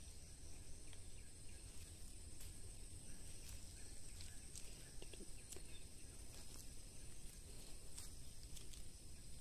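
Faint field ambience: insects chirring in a steady high-pitched tone, with scattered soft clicks and rustles.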